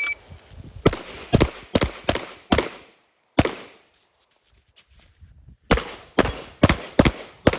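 A shot timer's start beep cuts off, then a Walther Q5 Match pistol fires in rapid strings: five quick shots, a single shot, a pause of about two seconds, then five more quick shots.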